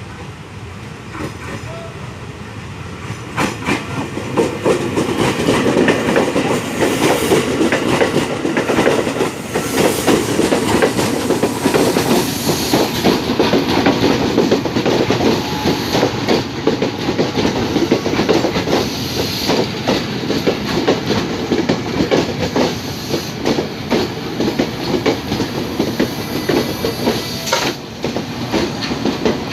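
KRL commuter electric train passing close by, its wheels clattering over the rail joints. The noise swells about three seconds in and stays loud.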